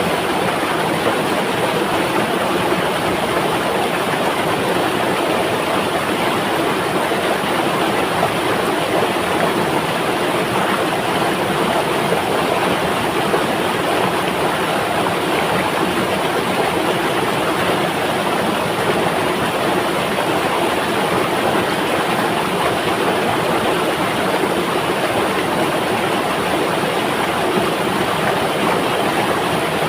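River water flowing steadily, an even rushing noise that holds the same level throughout.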